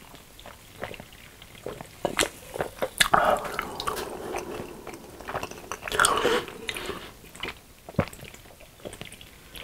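Close-miked gulping and swallowing as a drink is taken from a can, with chewing and small wet mouth clicks between the sips.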